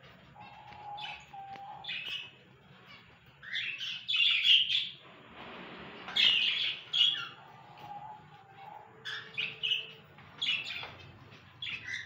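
Cockatiels chirping in short, repeated calls, the loudest cluster between about four and seven seconds in.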